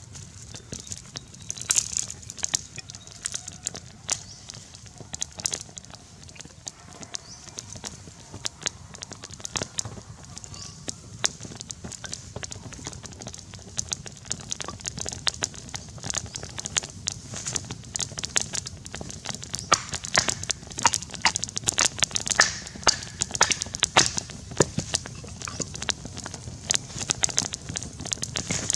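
Campfire crackling and popping: irregular sharp snaps over a low steady rumble, coming thicker about two-thirds of the way through.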